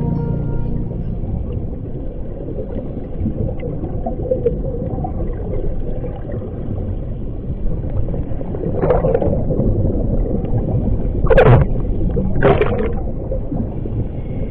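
Underwater sound of a scuba dive: a steady low rumble, with three bursts of a diver's exhaled bubbles from the regulator in the second half, the loudest about eleven seconds in.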